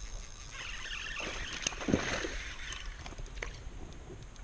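Kayak paddle and fishing gear being handled on a plastic sit-on-top kayak: a swish of water and a few sharp knocks against the hull, the loudest about two seconds in.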